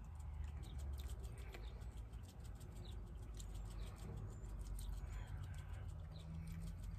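Plastic shaker of grated Parmesan cheese being shaken over a bowl of pasta: a quick, irregular patter of small ticks as the cheese rattles in the container and falls through the lid's holes. A low steady hum runs underneath.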